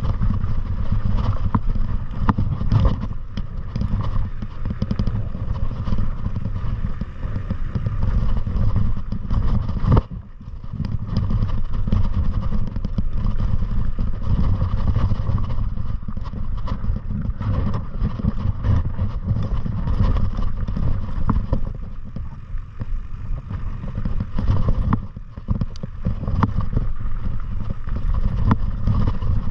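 Heavy wind rumble on the microphone with constant rattling and small knocks from moving fast down a rough trail. It eases briefly about ten seconds in and again a few seconds before the end.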